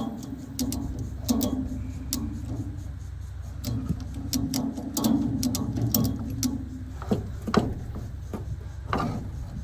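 Ratchet strap being cranked tight, its pawl clicking over the teeth again and again with a grinding rasp on each stroke of the handle.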